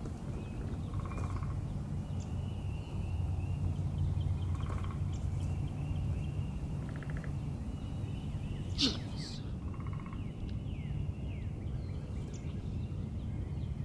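Wild turkey giving short soft calls four times over a low steady rumble, with a single sharp snap about nine seconds in.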